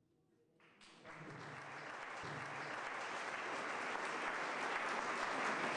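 Audience applauding, fading in around the first second and growing steadily louder.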